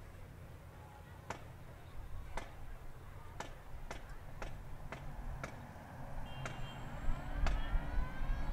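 Recorded sound effects over a stadium's loudspeakers: sharp ticks about once a second over a low rumble, then a siren starting to wail and rise near the end.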